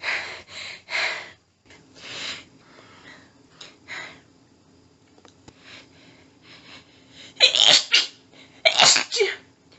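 A woman's sneezing fit: a quick cluster of short bursts at the start, softer panting breaths, then two strong sneezes about a second apart near the end.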